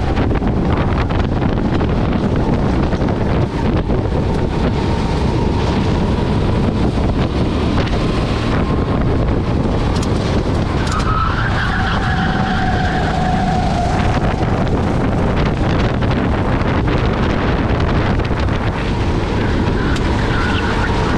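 Onboard sound of a rental go-kart racing: its engine running hard under load, mixed with wind rushing over the camera microphone, steady and loud throughout.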